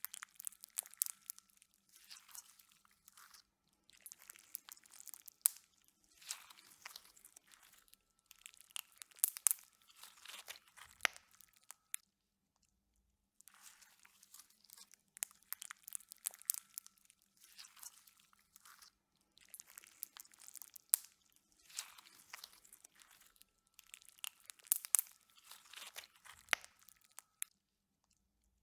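Slime being squeezed and worked by hand, making crackly, crunchy popping in bursts every second or two, with a pause of about a second midway.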